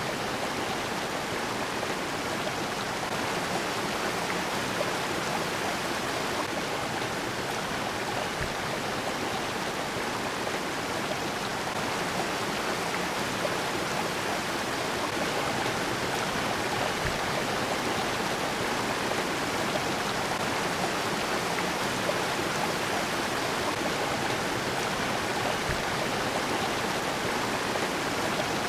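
Mountain creek water pouring over rocks in small cascades: a steady rushing splash with no break.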